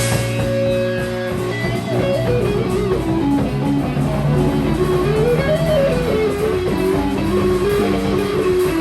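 Improvised instrumental rock played live: an electric guitar melody winds up and down over bass guitar, after a chord that is struck and held at the start.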